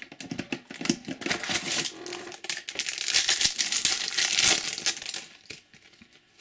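Foil trading-card pack wrapper crinkling and crackling as it is handled and opened, dense for about five seconds, then dying down to a few faint rustles.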